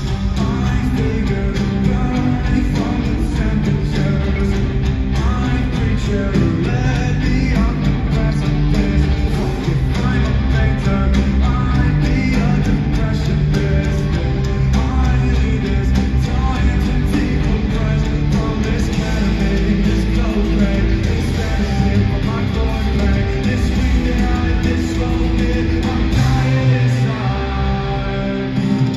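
A live rock band playing loudly through an arena sound system, with electric guitars and drums and singing at times, recorded from the audience.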